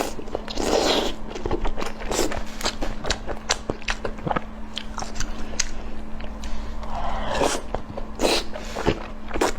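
Close-up eating sounds: someone biting and chewing food, with irregular wet crunches and crackles, over a faint steady hum.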